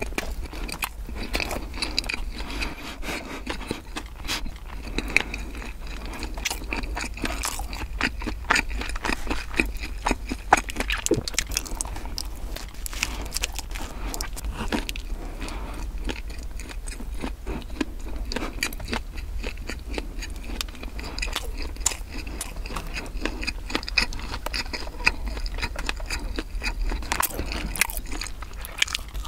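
A person chewing and biting into a crumb-coated sausage bread close to the microphone: a steady run of small sharp clicks and crackles from the mouth and the crusty coating.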